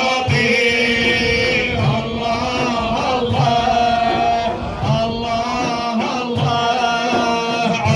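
A male voice chanting a Sufi dhikr, holding and bending long notes, over a low beat that comes about every second and a half.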